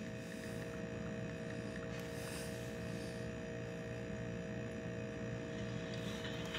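Steady electrical hum with faint room noise, no distinct events.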